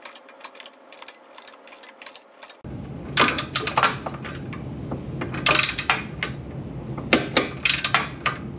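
Ratchet of a 3/8-inch torque wrench clicking in several short runs as a running-board bracket bolt is tightened toward its 20 ft-lb setting.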